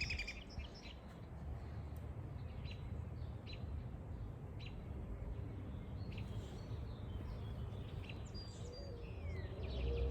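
Small birds chirping now and then, with a short falling call near the end, over a steady low rumble.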